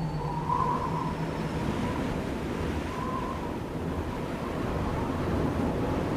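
Wind noise on the microphone of a camera carried on a paraglider in flight: a steady, rough rushing of air.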